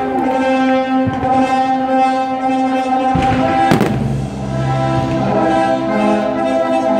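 Orchestral music with brass holding long, sustained chords, a deeper chord coming in about three seconds in. A single firework bang cracks through the music a little under four seconds in.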